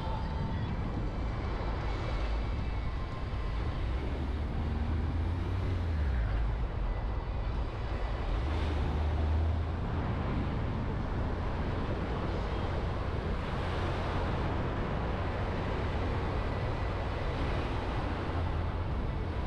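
Steady low rumble and hiss of a moving vehicle.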